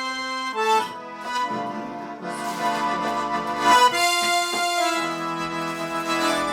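Russian garmon (button accordion) playing a slow melody over held chords. Its reedy notes change pitch every second or so.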